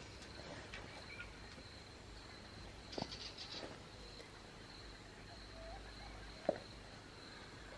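Faint outdoor ambience: insects trilling steadily at a high pitch, with a couple of soft knocks and a short call partway through.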